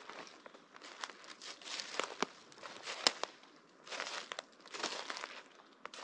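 Footsteps on a dry forest floor, with dead leaves crunching and small branches and twigs snapping underfoot, about one step a second.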